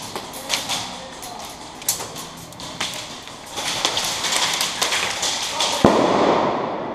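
Airsoft guns firing: scattered single shots, then rapid strings of shots from about three and a half seconds in, with one loud sharp crack near the end.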